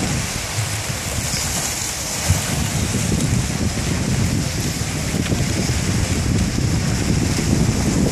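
Broken river ice slabs grinding and scraping against each other and the bank as the ice goes out on the Yellowstone River in the spring breakup, a steady hissing wash. Gusts of wind buffet the microphone with an uneven low rumble.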